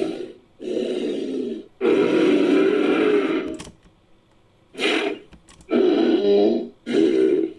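Designed creature calls for a fictional Styracosaurus–Sumatran rhinoceros hybrid, mixed from Styracosaurus sound effects and rhino sounds: five separate calls, two long ones followed, after a pause of about a second, by three shorter ones.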